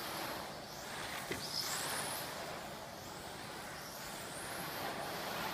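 1/12-scale electric RC pan car with a modified-class motor, its high motor whine gliding up and down in pitch as the car accelerates and slows, over a steady hiss.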